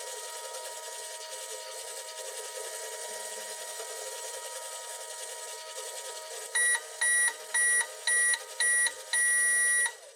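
Toy microwave running with a steady hum, then beeping five short times and once more at length as its cooking cycle ends.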